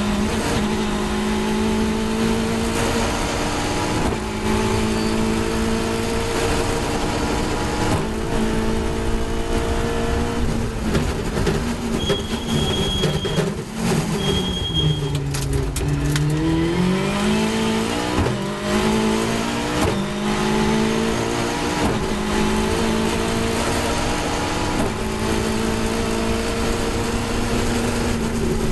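Caterham 420R's Ford Duratec four-cylinder racing engine heard from on board over wind and road noise, running at high revs. About halfway through the pitch drops away as the car brakes and downshifts for a corner, then climbs again through quick upshifts as it accelerates onto the straight.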